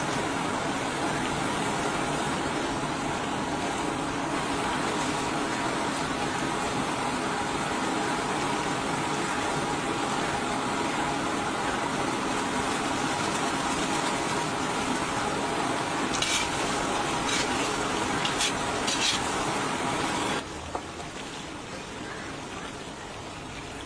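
Chicken karahi gravy boiling and sizzling hard in a steel wok over high heat, a steady hiss, with a few sharp clicks shortly before the sound drops quieter about twenty seconds in.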